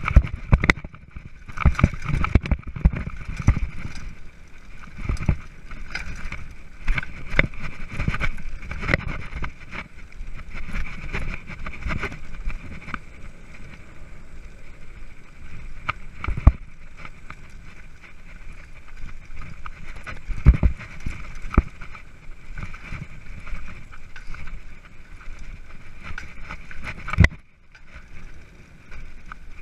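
Front-suspension mountain bike riding a bumpy dirt singletrack, heard from its handlebars: frequent knocks and rattles as the bike jolts over the ruts, over a steady rush of tyre and wind noise. It goes briefly quieter about 27 seconds in.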